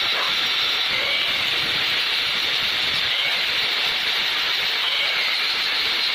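Angle grinder with an abrasive flap disc running at speed and sanding a stainless-steel pipe to a finish: a steady, high-pitched hiss with a faint wavering whine.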